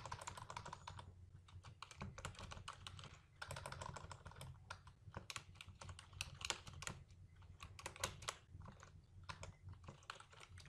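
Faint typing on a computer keyboard: irregular runs of quick keystroke clicks with short pauses between them.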